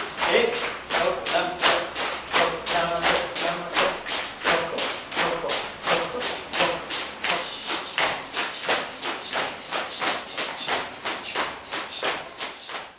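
Dance rhythm of sharp, even beats, about three a second, from a group dancing in step. Voices sing along in the first few seconds.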